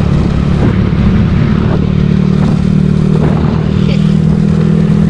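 Yamaha Mio Sporty scooter's small single-cylinder engine running steadily while riding, with road and wind noise.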